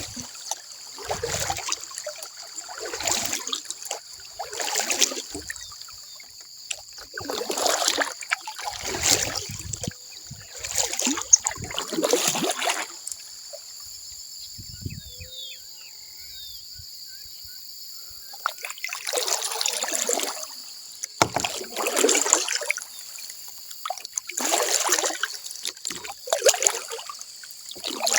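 Kayak paddle strokes dipping and pulling through water, one every second or two. The strokes stop for about five seconds midway and then resume, over a steady high-pitched background chorus.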